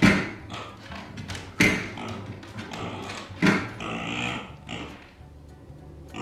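A micro pig grunting and squealing in frustration at being left alone. Three sharp, loud knocks come about every two seconds, each with a call trailing off after it.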